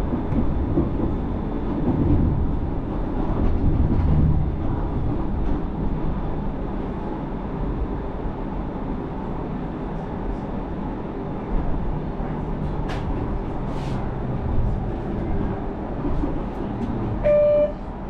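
Low-floor light rail tram running, a steady rumble of the train throughout. A short, high, single-pitched beep sounds once near the end.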